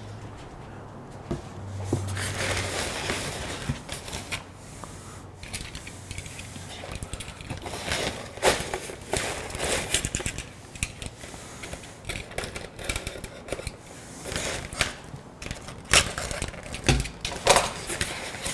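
Unpacking sounds: foam packing peanuts and plastic wrap rustling and crackling while a styrofoam box is handled, its tape slit with a utility knife, and the box lifted out, with scattered light clicks and scrapes.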